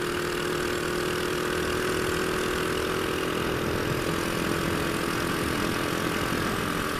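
A Honda Astrea Grand's small four-stroke single-cylinder engine running steadily while the motorcycle is ridden, heard through a stock, un-gutted Honda Absolute Revo muffler. The engine note eases slightly lower near the end.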